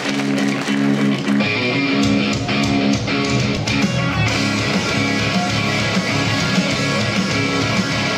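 Rock music with guitar; the full band with drums comes in about two seconds in and plays on steadily.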